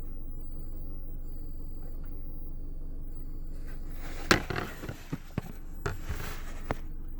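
Steady low hum from a car audio system with a JBL GTR-1001 subwoofer amplifier, with a faint high whine coming and going. It is noise the owner fears means the amp is failing. About four seconds in, a loud knock and several clicks of the amp being handled; the hum drops for a moment while they happen, in keeping with the noise that changes when the amp is moved or pressed.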